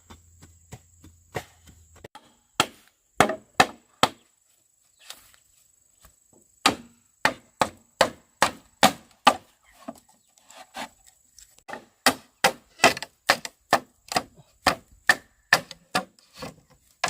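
Bamboo being chopped with a blade: a run of sharp, hollow woody strikes, a few a second, with a pause of a couple of seconds before the chopping picks up again.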